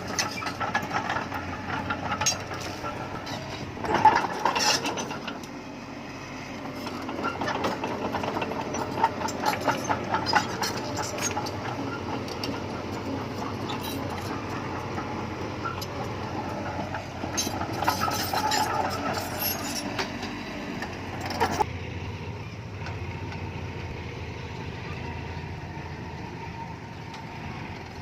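Bulldozer at work: its diesel engine running under loud metallic clanking and rattling, with irregular sharp knocks. The clatter stops suddenly about three quarters of the way through, leaving the engine running steadily.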